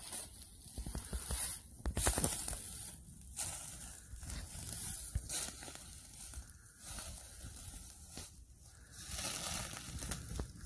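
Footsteps crunching and rustling through dry leaf litter and brush, in uneven bursts.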